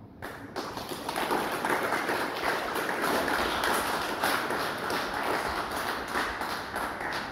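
Audience applauding, many hands clapping, building within the first second and tailing off near the end.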